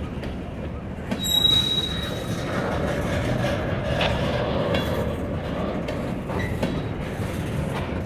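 Freight train of covered hopper cars rolling slowly past, with a steady rumble of wheels on rail. A brief high wheel squeal comes about a second in, and a few clicks and knocks follow.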